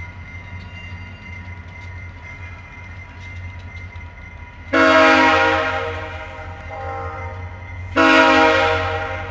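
Approaching VIA Rail passenger locomotive sounding its multi-note air horn: a loud blast starting a little before halfway that fades out, a softer short one, then another loud blast near the end. The locomotive's diesel engine hums steadily underneath.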